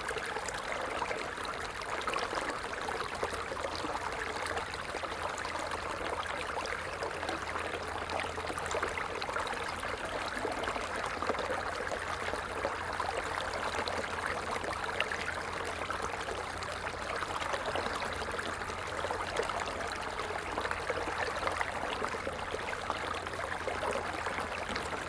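Shallow stream flowing over stones, a steady babbling and trickling of water.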